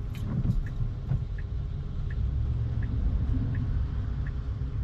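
Low road and tyre rumble inside a Tesla's cabin on a wet road, with the turn-signal indicator ticking steadily about one and a half times a second.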